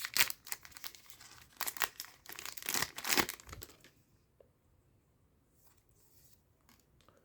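A trading-card booster pack's wrapper being torn open and crinkled, a run of sharp crackles and rustles that stops about four seconds in.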